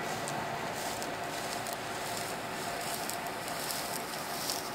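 1983 New Holland combine harvester with its Fiat diesel engine running steadily while cutting and threshing wheat, a constant mechanical hum and hiss.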